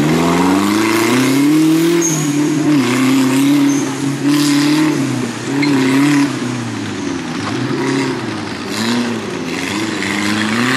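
Off-road competition buggy's engine revving hard as the buggy works through mud. The pitch climbs over the first two seconds, then drops and surges again several times as the throttle comes off and goes back on.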